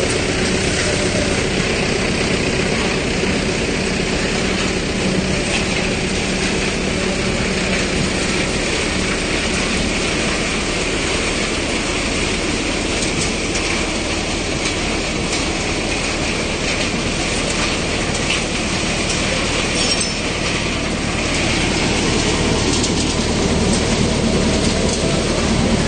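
Tractor-driven multicrop thresher running under load as groundnut plants are fed through it: a loud, steady mechanical rattle over the tractor engine's drone.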